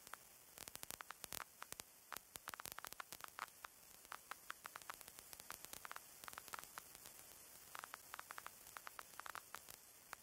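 Near silence with faint static: a soft hiss and scattered irregular crackles.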